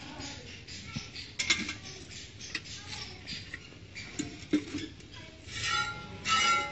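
Cow being milked by hand into a steel bucket: irregular squirts of milk hitting the metal pail, a couple a second, getting louder near the end.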